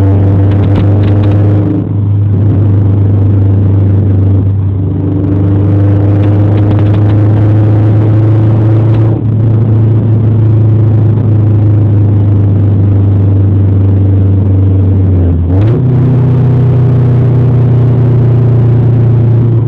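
Honda Civic's B16A four-cylinder engine running through a blown-out exhaust leak: a loud, steady, deep drone. About three-quarters of the way through, the note steps up in pitch and holds at the higher speed.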